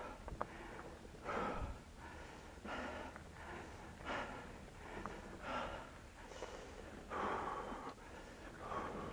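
Heavy breathing of a mountain biker under exertion, a loud breath about every second and a half, with a few light clicks in between.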